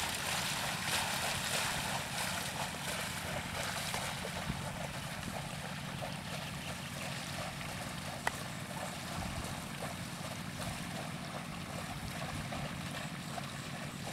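Steady sloshing and splashing of water and mud in a flooded paddy field as a bullock-drawn leveller is dragged through it, with one sharp click about eight seconds in.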